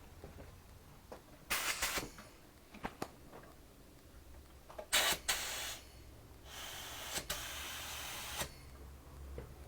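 Pneumatic paint spray gun triggered in three bursts of hissing compressed air, two short and then one of about two seconds, as thinned primer is test-sprayed. Faint clicks between the bursts.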